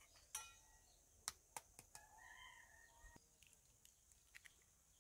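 An egg knocked once against a stainless steel bowl with a brief metallic ring, then a few small sharp cracks of eggshell being broken open over the bowl. Otherwise quiet, with a faint bird call in the middle.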